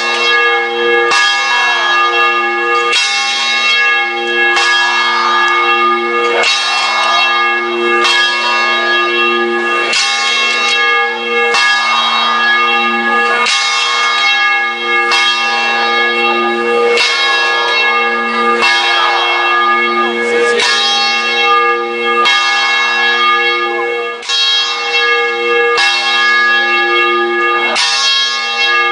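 Large tower bell swinging and ringing, struck about once every second and three-quarters in an even rhythm, each stroke's ringing running on into the next.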